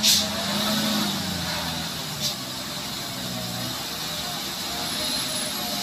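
Diesel truck engine running steadily as the truck edges along a muddy track. Two short sharp hisses of air, one at the start and one about two seconds in.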